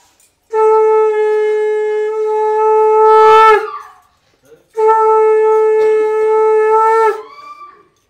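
Conch shell (shankha) blown in two long, steady blasts of about three seconds each, a second apart, each bending in pitch as the breath runs out; the ritual conch call of a Bengali wedding rite.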